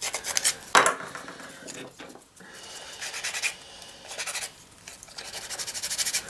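Edges of a paper strip being scraped and rubbed to distress them, in several bursts of quick rasping strokes, with one sharper, louder stroke a little under a second in.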